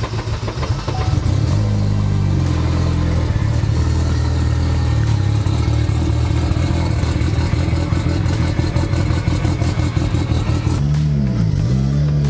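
Turbocharged Chevy Cruze 1.8 four-cylinder engine on a cold start, heard from inside the cabin. It catches about a second in, flares up briefly, then settles into a steady idle. Near the end the revs dip and come back up once.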